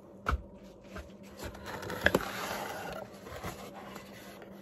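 Cardboard mailer box being opened by hand: the flaps scrape and rustle, with a couple of sharp clicks as they come free.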